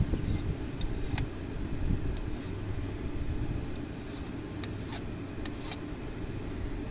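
A steady low rumble, with scattered light metallic clicks as a steel bar and blacksmith's tongs touch the anvil.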